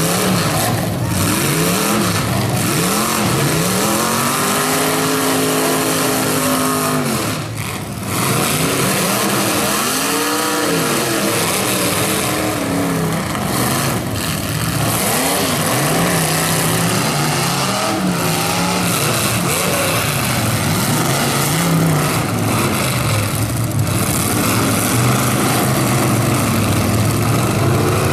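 Demolition derby cars' engines revving hard, over and over, their pitch sweeping up and down and overlapping.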